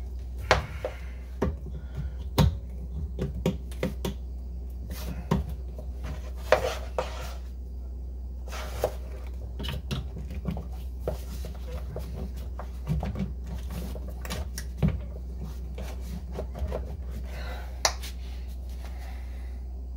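Scattered clicks and knocks of a range power cord's plug being handled and pushed into a 240-volt range receptacle, over a steady low hum.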